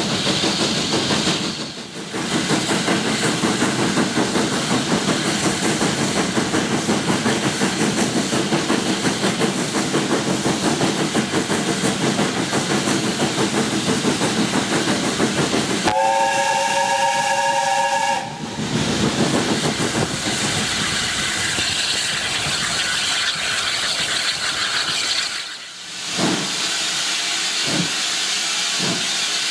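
Steam locomotive (USATC S160 2-8-0 No. 2251 Omaha) working hard with rapid exhaust beats, heard from the train. Its chime whistle sounds several notes together for about two seconds, just past the middle. Near the end the beat drops away to steam hiss with a few sharp knocks.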